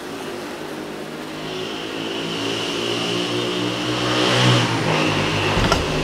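Honeybees buzzing around an open hive, a droning hum that swells over the first few seconds. Near the end there is a short wooden knock as a frame is set back into the hive box.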